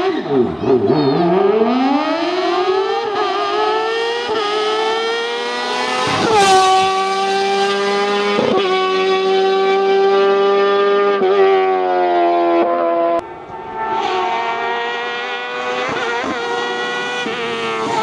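Hillclimb race car engine at high revs: its pitch climbs over the first few seconds, then holds high and steady for several seconds, with a few sharp cracks. The note drops out briefly about two-thirds of the way through, then picks up again.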